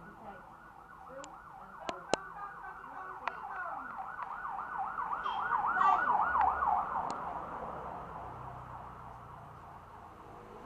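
An emergency vehicle siren in a fast warble, growing louder to its loudest about six seconds in and then fading away. A few sharp clicks sound about two seconds in.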